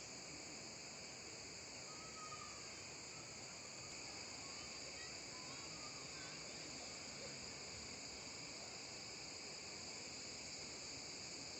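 Steady, high-pitched chorus of insects, several shrill tones held without a break.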